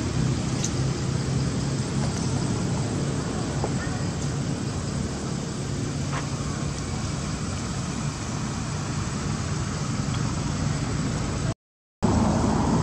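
Steady outdoor background of road traffic noise with a low vehicle engine hum that fades over the first two seconds, plus faint voices. The sound cuts out completely for a moment near the end, then resumes.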